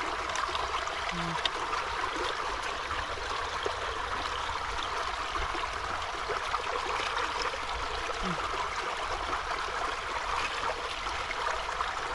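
Steady rush of running water with a low rumble underneath, and scattered light clicks.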